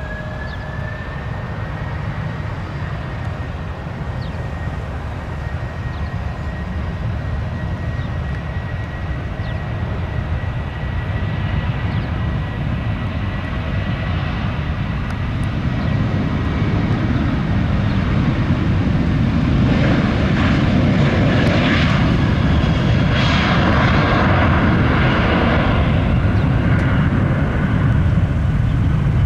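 Jet airliner engines running, with a thin steady whine in the first half, then growing louder from about halfway as the aircraft comes closer.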